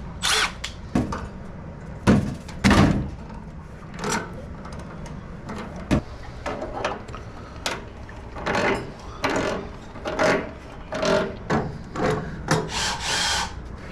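Water heater vent pipe being pulled and ripped out by hand: irregular scraping, rubbing and rattling, with two loud bangs about two seconds in and a quick run of scrapes near the end.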